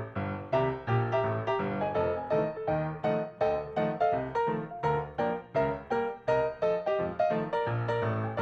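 Background piano music with a steady, even rhythm of struck notes.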